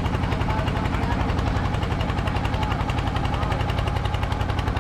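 The inboard engine of a small wooden fishing boat under way, running steadily with a rapid, even chugging beat.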